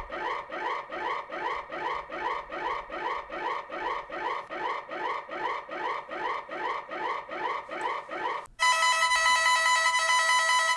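Electronic emergency alert alarm sounding a rapidly repeating rising whoop, about two and a half sweeps a second. About 8.6 seconds in it switches abruptly to a steady, continuous multi-tone electronic alarm tone.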